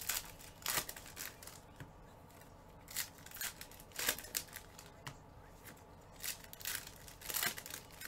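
Foil trading-card pack wrappers being torn open and crinkled by gloved hands, in a string of short rustles.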